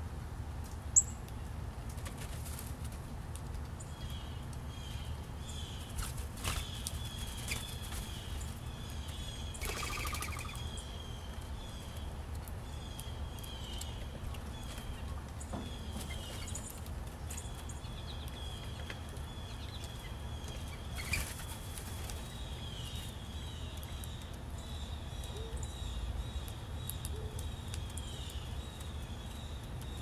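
Bird wings flapping in a few short flutters as a mourning dove flies off and a blue jay lands, with a sharp click about a second in. Behind them a small bird repeats short, slightly falling high notes from about four seconds on, over a steady low rumble.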